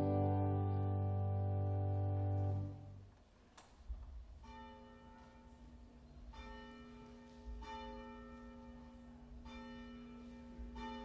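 Closing instrumental music ending on a long held chord that cuts off about three seconds in. Softer ringing bell-like notes follow, struck every one to two seconds.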